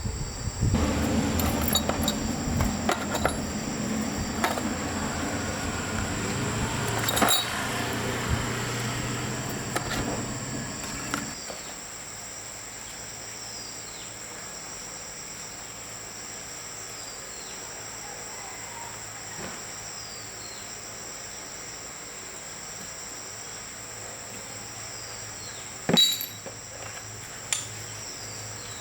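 Insects, crickets among them, trilling steadily in the background with short falling chirps. For roughly the first eleven seconds a louder low hum with scattered metal clinks and knocks sits over them; after that the insects carry on alone, with a single sharp knock near the end.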